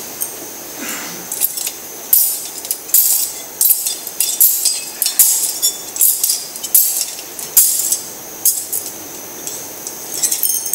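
Metal thurible (censer) swung on its chains to incense the Gospel book before the reading: a series of sharp, irregular metallic clinks of the chains and lid.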